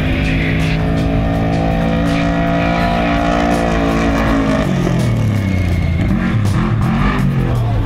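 Off-road race truck engine running hard as the truck drives the dirt course. Its note holds steady for the first half, then rises and falls repeatedly. Background music is mixed in.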